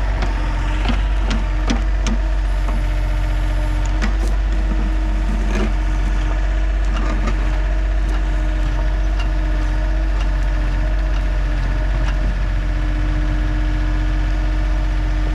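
Compact John Deere 30 excavator (a Yanmar) running steadily with a steady whine over the engine while it works, with scattered sharp knocks and clatter, mostly in the first half.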